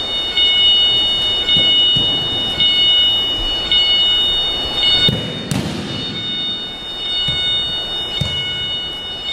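Aikido practitioners' feet and bodies thudding and scuffing on a gym mat during a throwing demonstration, with the heaviest thud about five seconds in as the partner is thrown. A steady high ringing tone, pulsing about once a second, runs beneath it.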